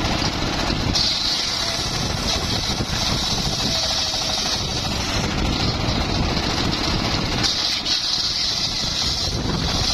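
Homemade engine-driven circular sawmill running steadily while sawing mahogany, with a high hiss from the cut that swells and fades several times.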